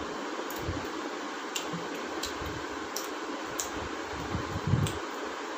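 Eating sounds at close range: scattered small clicks of chewing and lip smacking and the soft squish of curry and bread handled by hand, over a steady hiss, with a soft thump against the table near the end.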